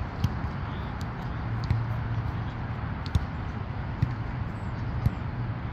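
A volleyball being struck during a rally: about five sharp thumps, each a second or so apart, over a steady low rumble.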